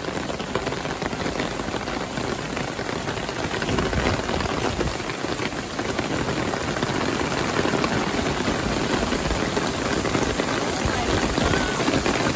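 Heavy rain pouring onto wet asphalt and pavement, a steady, dense patter of drops that grows slightly louder about four seconds in.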